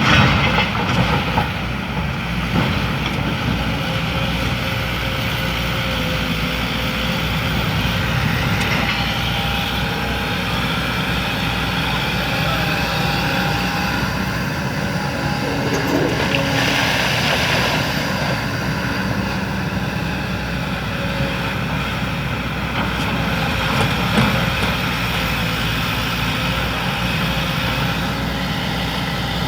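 Excavator's diesel engine running steadily as it works, with a brief swell of hissing noise a little past halfway through.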